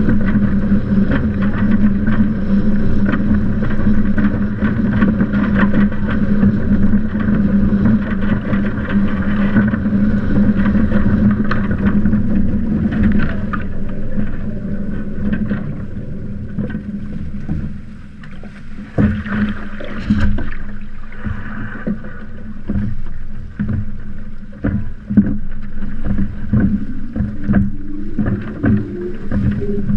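Water rushing and splashing along the hull of a Windraider Rave hydrofoil trimaran under sail, with wind buffeting the boat-mounted camera. A steady hum runs through the first half and fades about 16 seconds in, after which the splashing and wind come in uneven gusts.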